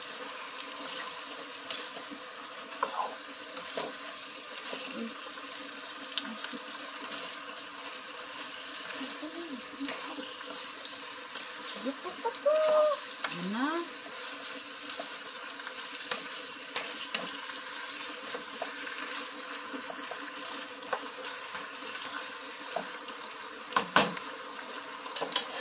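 Chicken pieces sizzling in a nonstick frying pan as they are sautéed and stirred with a spatula, the spatula scraping and clicking against the pan. A sharper knock comes near the end.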